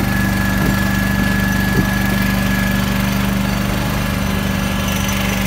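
Small engine of a compact walk-behind work machine running steadily at idle, holding one even pitch, with a couple of faint knocks.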